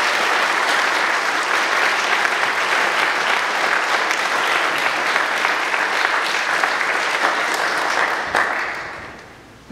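Audience applauding: a steady round of clapping that tapers off and fades out near the end.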